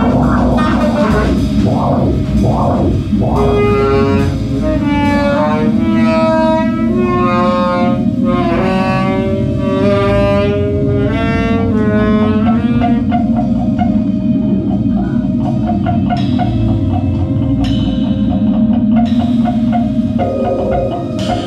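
Live improvised trio music: alto saxophone playing sliding, wavering phrases over drums and synth, with a steady held tone in the last third.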